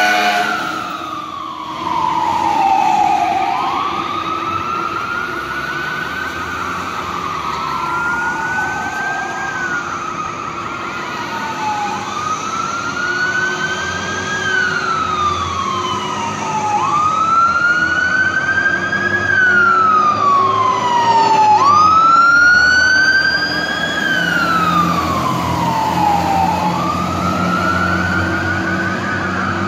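Fire apparatus electronic siren (Whelen 295) sounding a wail, rising and falling slowly about every four to five seconds. Around twenty seconds in, a second overlapping siren tone briefly joins it.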